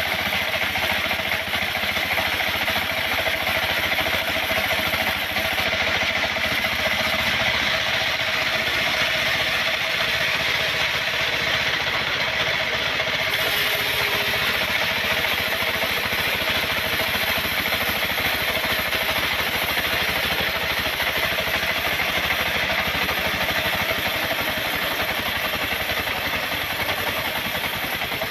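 Engine of a wood-cutting saw running steadily at an even speed, without revving up or down.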